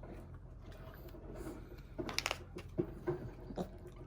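Hoof-trimming shears snipping a goat's hoof wall flat: a handful of short, crisp clicks in the second half.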